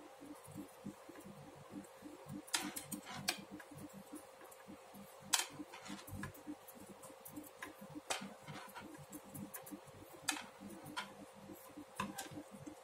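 Knitting needles clicking and tapping together as stitches are worked, a scatter of faint, irregular clicks over low handling noise, with a faint steady hum underneath.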